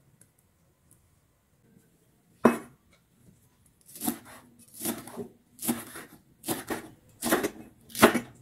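Chef's knife slicing spring onions on a wooden cutting board, each cut a crisp crunch ending in a knock of the blade on the wood. After a quiet start, one sharp knock comes about two and a half seconds in, then steady cuts follow from about four seconds in, a little over one a second.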